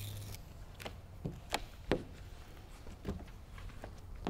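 A spray bottle's hiss cuts off just after the start. Then come about six light, sharp clicks and taps as a squeegee card works along the edges of the freshly sprayed rear glass.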